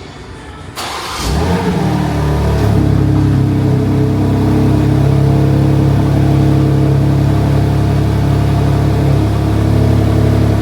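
BMW M2's twin-turbo straight-six starting up: it cranks and catches about a second in, then settles into a steady idle.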